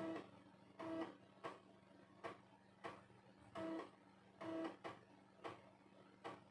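3.5-inch floppy disk drive writing a Windows 98 startup disk: the head stepping with sharp clicks and short buzzing bursts roughly once a second, over a steady low hum.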